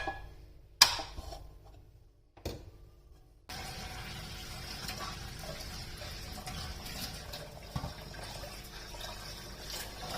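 Three sharp knocks, then, about three and a half seconds in, water starts running steadily from a tap.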